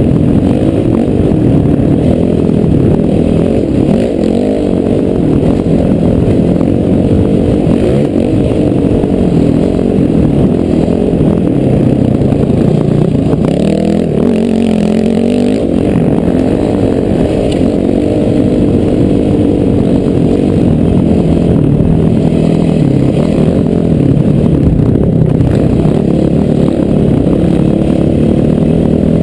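Honda CRF450R's single-cylinder four-stroke engine running hard, its revs rising and falling with the throttle, heard from a helmet-mounted camera. About halfway through the revs drop away and climb back up.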